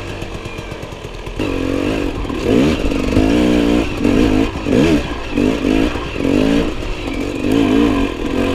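Enduro motorcycle engine being ridden off-road. It runs at lower revs for the first second or so, then picks up, with the revs rising and falling again and again as the throttle is worked.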